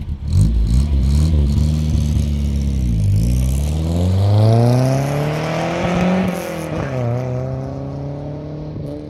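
Nissan 1400 bakkie's 1.4-litre four-cylinder engine through a new 50 mm exhaust with a single silencer, accelerating hard away from a standstill. The exhaust note climbs in pitch, drops at a gear change about three seconds in and again near seven seconds, then fades as the bakkie drives off.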